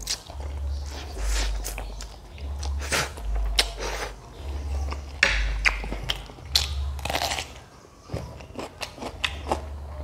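Close-miked mouth sounds of someone eating noodles with a corn fritter: repeated biting and chewing with short wet clicks, rising and falling about once a second.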